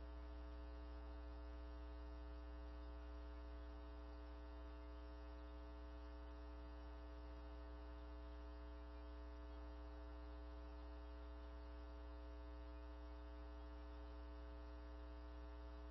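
Faint, steady electrical mains hum in the audio feed, with a buzz of evenly spaced overtones above it and no change throughout.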